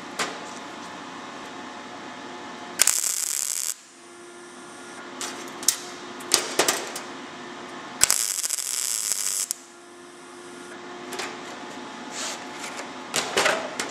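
MIG welder arc tacking thin car-body sheet steel: two separate sizzling bursts, the first about a second long and the second about a second and a half, some five seconds apart, with the machine at its usual setting for tacking.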